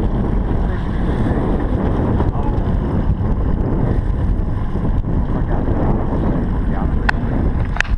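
Steady, loud wind rumble buffeting the microphone on a boat at sea, with two sharp clicks near the end.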